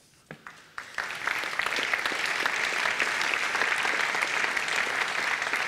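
Audience applause: a few scattered claps, then the whole crowd clapping steadily from about a second in.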